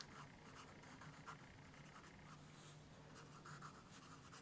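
Faint scratching of a graphite pencil sketching on paper, in irregular short strokes.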